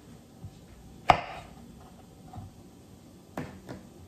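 Kitchen knife striking a plastic cutting board while cutting the stem ends off mushrooms: one sharp knock about a second in, then two lighter knocks close together near the end.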